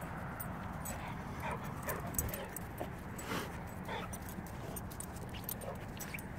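Young yellow Labrador whimpering faintly, several short whines spread over a few seconds.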